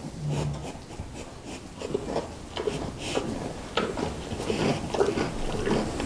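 A cow eating loose hay at a metal feed barrier: hay rustling and being torn, with irregular crunching and clicking as it feeds.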